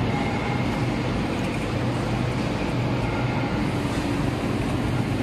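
Steady machinery drone with a constant low hum and a faint high whine, the background running noise of a factory workshop.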